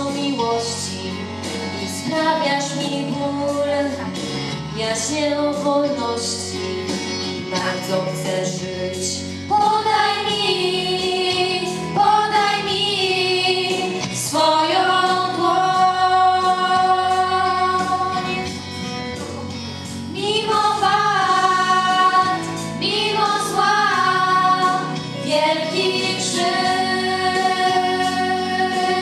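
A girl singing a song into a microphone with a children's choir, over an instrumental accompaniment. The voices hold long notes.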